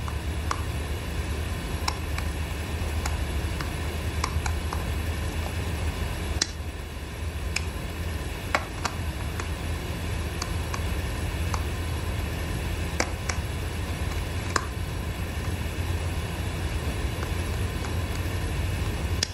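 Steady low electrical hum from wiretap listening equipment, with faint, irregular clicks scattered throughout.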